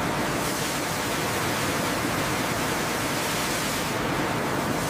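Steady rushing hiss of high-pressure water jets spraying down onto steel rails.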